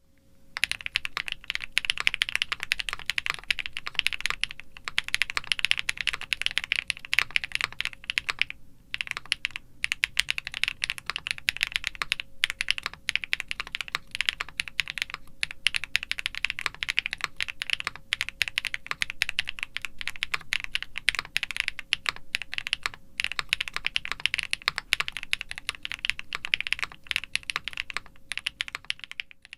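Fast, continuous typing on a KBDFans Tiger80 mechanical keyboard with factory-lubed Gateron Smoothie linear switches, a polycarbonate plate, foam and tape-mod dampening, and GMK doubleshot ABS keycaps. There is a short pause a little before nine seconds in.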